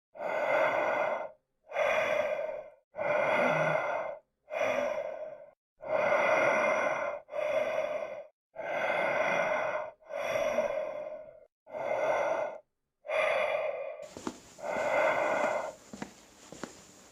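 Slow, heavy human breathing: about eleven drawn-out breaths of roughly a second each, evenly paced, with a faint hiss coming in near the end.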